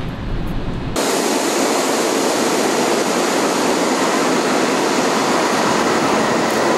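New York subway G train running into a station: a steady rush of noise that starts suddenly about a second in, after a low rumble.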